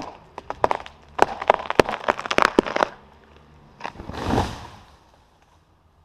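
Felled pine trunk's hinge wood cracking and tearing in a rapid, irregular string of sharp cracks as the tree goes over, then the trunk crashing heavily to the ground about four seconds in.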